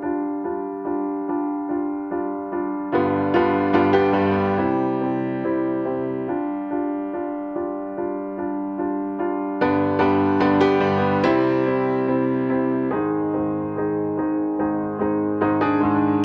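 Background piano music: repeated soft keyboard notes over held chords, changing chord every few seconds.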